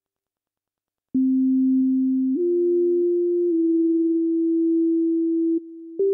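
Synthesizer music of pure, sine-like tones. After about a second of silence a low held note comes in, steps up in pitch and then shifts between a few neighbouring notes. Near the end it drops quieter for a moment before a new, higher note starts.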